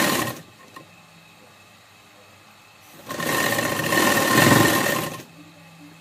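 Sewing machine stitching a seam through cloth in two runs. A short run stops just after the start, then after a pause of about two and a half seconds a steady run of about two seconds follows.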